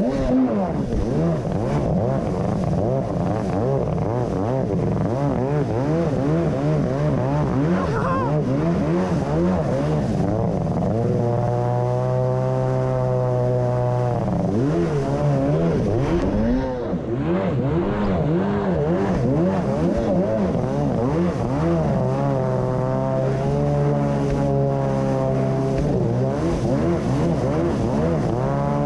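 Kawasaki JS550SX stand-up jet ski's two-stroke engine running hard through a Coffman's half-pipe exhaust. Its pitch keeps rising and falling, and it briefly eases off about seventeen seconds in, over a steady rush of water spray.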